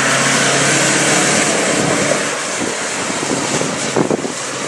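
Jeep Cherokee XJ engine running hard at steady high revs as the SUV pushes through mud and up a steep slope, with wind on the microphone. The engine note fades after about two seconds as the vehicle climbs away.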